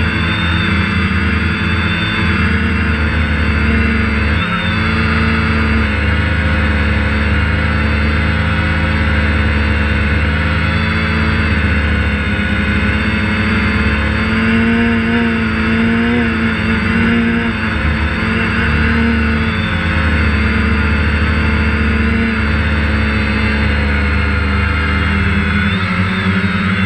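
DJI Phantom quadcopter's motors and propellers buzzing steadily, picked up by the camera mounted on the drone itself. The pitch wavers slightly as the motors change speed.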